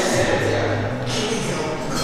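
Indistinct voices over background music, with no clear clank or impact from the bar.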